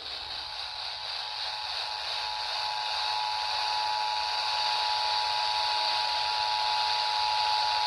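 Emergency Alert System attention signal: the two-tone alert of two steady tones sounding together, heard over a radio receiver with hiss, starting about half a second in. It heralds the spoken Virginia Emergency Alert System test message.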